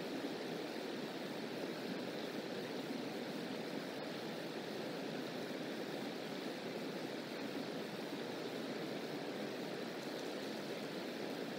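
Steady outdoor background noise, an even rushing hiss with no calls or distinct sounds.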